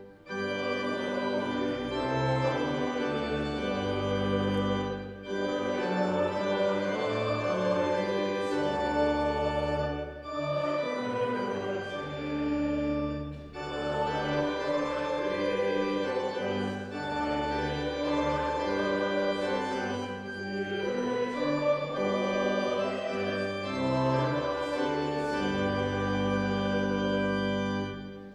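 Church pipe organ playing slow, sustained chords that change every second or two, with short breaks between phrases.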